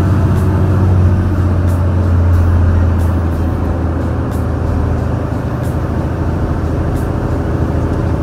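Large truck's diesel engine pulling hard up a steep grade, a steady low drone heard from the cab through a slightly open window. The exhaust is stock, so the note is fairly mild.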